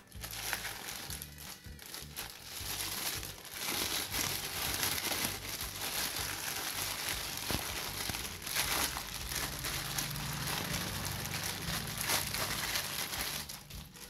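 Thin clear plastic bag crinkling and rustling as it is pulled off a speaker driver, over background music.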